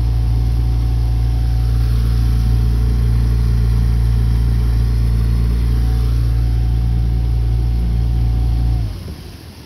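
Mercury outboard motor running steadily at speed, driving a jon boat: a loud, even low drone that cuts off abruptly near the end.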